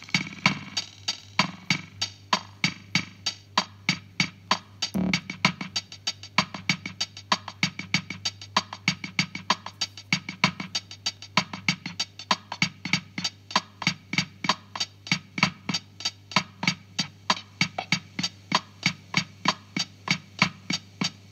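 Casio CZ-230S drum-machine Bossa Nova rhythm played through a Vermona DEG 500 digital delay: a fast, even run of clicky percussion hits with a steady low hum underneath, and one heavier low thump about five seconds in.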